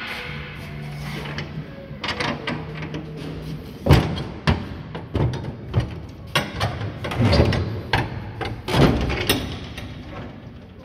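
Steel shipping-container door being unlatched and swung open: clanks and knocks of the door's locking bars and handle, with metal creaking, from about four seconds in until near the end. A low steady hum runs underneath for the first few seconds.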